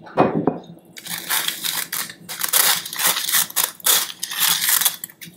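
A hand-crank metal flour sifter being cranked quickly, grating sugar through its mesh into a steel saucepan. It makes a steady run of scratchy rasping strokes, several a second, starting about a second in after a short loud sound at the very start.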